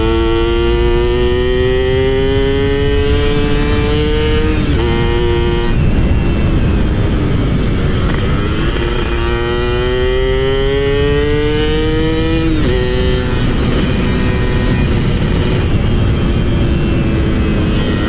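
Yamaha F1ZR two-stroke motorcycle engine accelerating under way. Its pitch climbs slowly through each gear and drops sharply at two upshifts, about 4.5 and 12.5 seconds in, over a steady rushing noise.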